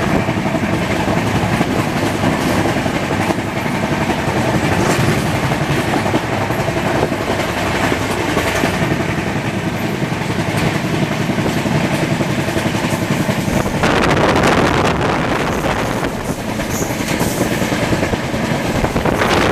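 Passenger train running at speed, heard from an open coach doorway: a steady rush of wheels on rails and wind, swelling louder for a couple of seconds about 14 seconds in.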